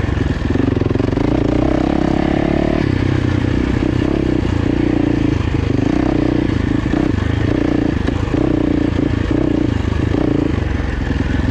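Off-road motorcycle engine running as it is ridden along a dirt single-track trail, its note rising and falling with the throttle.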